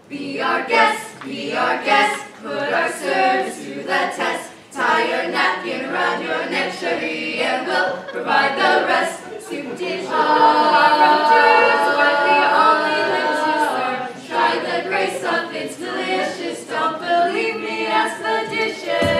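A cast of young voices singing together in harmony, holding one long chord for a few seconds in the middle of the phrase.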